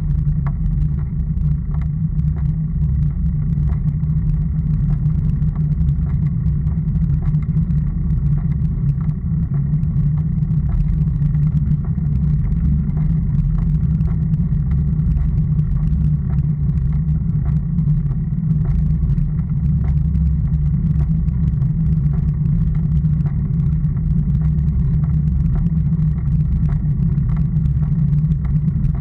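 Steady low rumble of wind and road vibration picked up by a handlebar-mounted action camera as a road bike rolls along an asphalt lane, with faint ticks from the rough surface.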